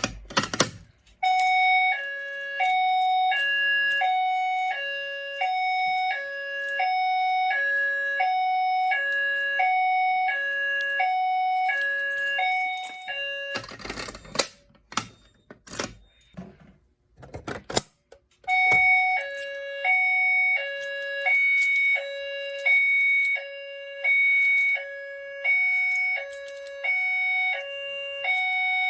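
Fire alarm notification appliance sounding a two-tone high-low signal, the two tones alternating evenly, each held about two-thirds of a second. About halfway through it stops for roughly five seconds of clicks and rustling, then resumes.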